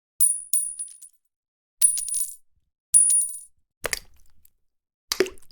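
A series of separate coin drops: three single coins striking and ringing with a high, clear ring that fades within half a second, then two shorter, duller clattering coin impacts near the end.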